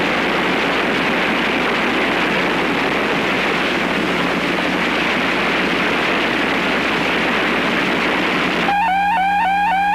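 Steady hiss of broadcast static with a constant low hum. About nine seconds in it cuts abruptly to a warbling electronic alert tone that repeats about three times a second.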